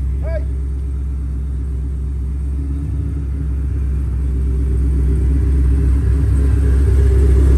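Cadillac CTS-V's supercharged V8 running at low revs with a deep, steady rumble as the car rolls slowly forward, growing louder near the end as it comes closer.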